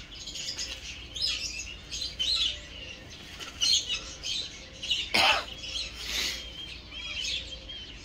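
Birds chirping and twittering in quick, short high notes throughout, with one louder, sharper sound about five seconds in.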